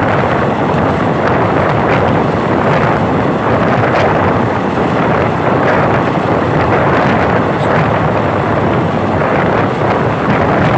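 Indian Railways train running, a steady loud rush of rolling and wind noise with no break, and a single faint tick about four seconds in.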